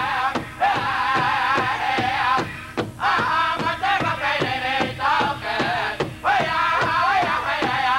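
Powwow drum group singing in high-pitched unison while striking a large shared drum in a steady beat, about three beats a second.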